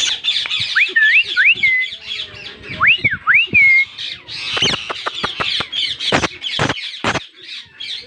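Indian ringneck parakeets giving dense, harsh calls, with rising whistled notes twice, about a second in and again around three seconds. In the second half there is a run of sharp knocks.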